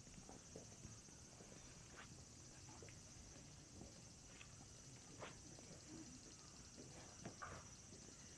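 Faint night-time walking ambience: scattered footsteps and taps over a steady, high insect trill.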